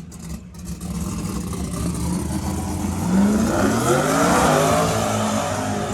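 Car engine running, its pitch rising and then falling once in the second half as it revs.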